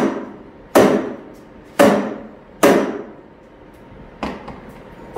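A mallet striking the metal tube cage of a Hammerhead Twister 150cc go-kart to knock the seized cage loose from the frame. Five blows, roughly a second apart, each with a short ring; the last one is lighter.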